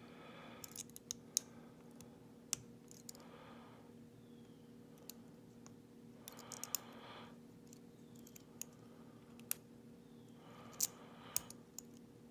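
Lock pick and tension wrench working the pin tumblers of a Schlage padlock during single-pin picking: small sharp metallic clicks and ticks at irregular intervals as the pins are probed, with a binding pin still holding the plug.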